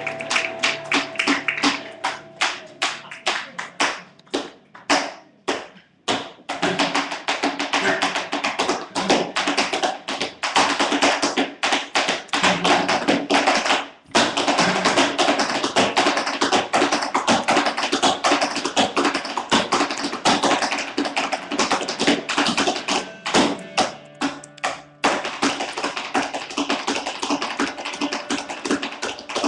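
Tap dancer's shoes striking the floor in fast, dense rhythmic runs, breaking off briefly a few times.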